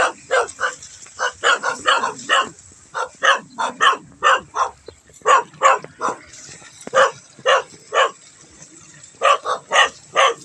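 A dog barking over and over, in quick runs of short barks with brief pauses between runs.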